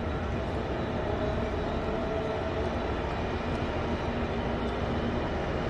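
BelAZ 75710 ultra-class mining haul truck driving, its two MTU 16-cylinder diesel engines running with a steady rumble and a faint steady hum.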